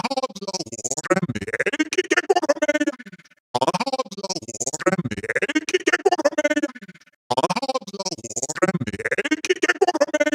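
Synthesized robotic voice effect, its speech-like phrases chopped into a rapid, glitchy stutter. The phrases last about three and a half seconds each, with brief gaps between them, and the same pattern repeats three times.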